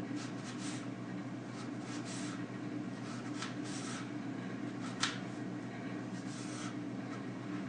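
Knife cutting an onion: irregular short, crisp cutting strokes, with one sharper stroke about five seconds in, over a steady low hum.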